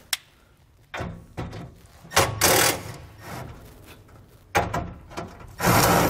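Cordless impact driver backing self-tapping screws out of an aluminium toolbox cover, in short noisy runs with scraping as the screws pull free; the loudest runs come about two seconds in and again near the end.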